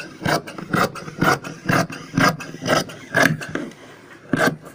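Large tailor's shears cutting through fabric, one sharp snip after another, about two a second.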